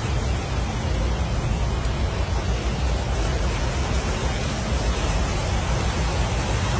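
Floodwater rushing fast through a street: a steady, loud rush of water noise with a heavy low rumble underneath.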